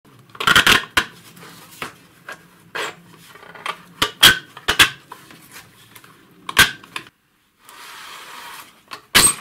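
Metal clicks and knocks, about ten sharp ones, with scraping, as a screwdriver works a stuck internal circuit assembly out of an avionics indicator's metal case; a longer scrape comes near the end.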